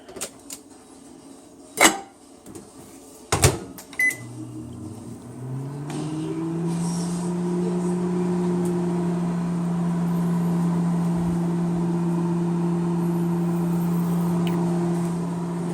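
A few clicks and two sharp knocks, then a short keypad beep about four seconds in, after which the microwave oven starts and runs with a steady hum. The oven is being restarted for the second minute of cooking after the corn was turned.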